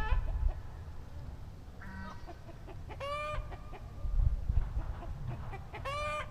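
A chicken calling: two short, matching pitched calls about three seconds apart, with a fainter short call before the first.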